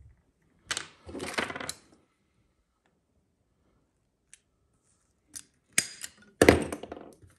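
Small metal fittings and hand tools clinking and clattering on a wooden workbench, in separate bursts with quiet between. Late on there is a sharp snap as a handheld PEX cutter closes through a length of blue PEX tubing, followed by the loudest clatter.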